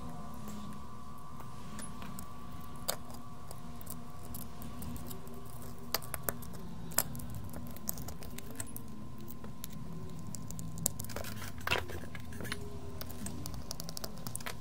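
Small sharp clicks and taps of plastic headphone ear-cup parts being handled and pressed together as the cover is fitted back on, a few scattered clicks with a short cluster near the end, over a steady low hum.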